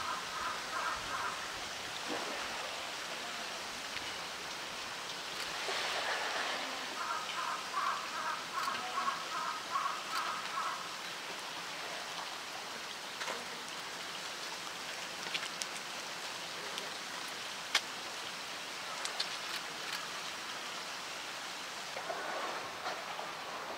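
Pool water sloshing and splashing as a polar bear swims, over a steady rush of water. The splashing gets louder about six seconds in and again near the end.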